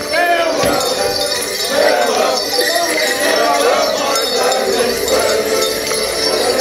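A Border Morris side dancing: steady jingling over the side's band music, with voices calling out in wavering, rising and falling tones.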